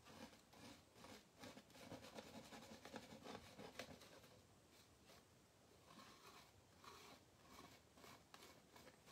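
Faint scraping of a metal palette knife spreading acrylic paint on a stretched canvas, in short irregular strokes that ease off briefly near the middle.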